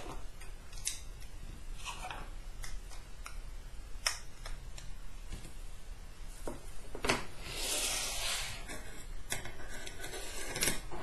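Clear acrylic parts handled and slotted together on a wooden tabletop: scattered light clicks and taps of plastic on plastic and wood, then longer scraping rubs as the pieces slide into each other about two-thirds of the way through.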